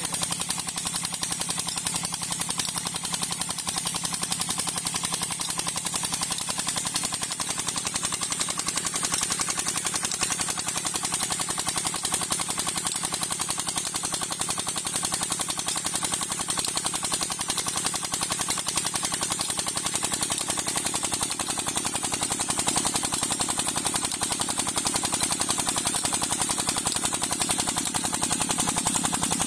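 25 HP Petter single-cylinder diesel engine running steadily, belt-driving a tubewell pump, its exhaust firing in a fast, even chatter of beats.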